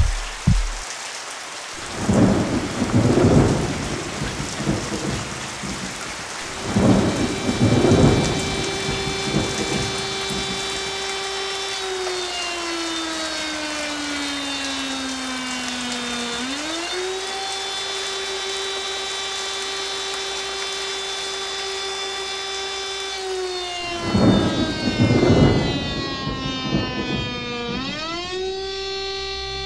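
Heavy rain and rolling thunder, with loud claps about two, seven and twenty-four seconds in. From about seven seconds an outdoor tornado warning siren sounds a steady tone that sags lower and climbs back up twice.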